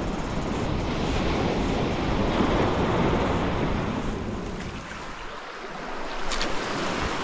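Small waves surging in and washing over a rocky shore shelf, with some wind rumble on the microphone. The wash swells about two seconds in and eases off after about five seconds.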